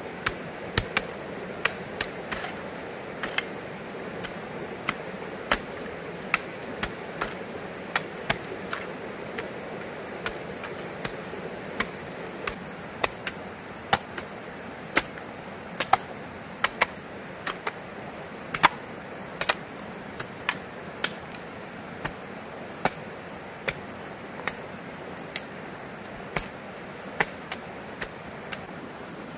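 A hand tool striking over and over: sharp chopping blows at about one a second, some much louder than others.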